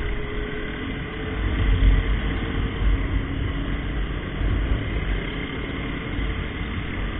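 Several small motorcycles running along together at low speed, their engines a steady drone, with uneven wind rumble on the microphone.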